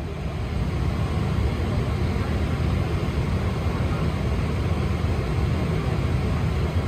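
Steady low hum and rush of air inside a Boeing 777-200 cabin parked at the gate before pushback, from the aircraft's air-conditioning and ventilation running.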